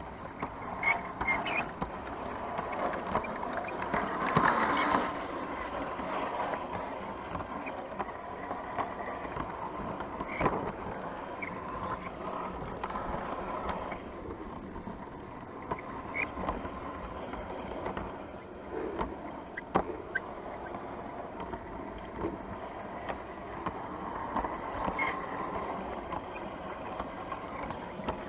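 G scale model train running along garden railway track, heard from a camera riding on one of its wagons: a steady rolling rumble of wheels on rails, with occasional sharp clicks.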